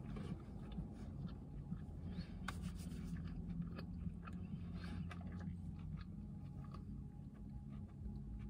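Faint chewing of a mouthful of burger, then a paper napkin rustling and rubbing as it wipes the mouth, over a steady low hum inside the car.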